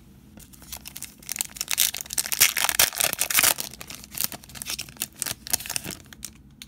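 Foil wrapper of a 2017-18 Status basketball card pack being torn open and crinkled by hand, a dense crackling that is loudest in the middle and dies down about six seconds in.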